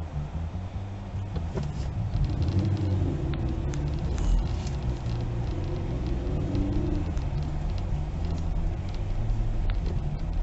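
Steady low engine drone and road rumble of a vehicle being driven, heard from inside the cab, with a few light clicks.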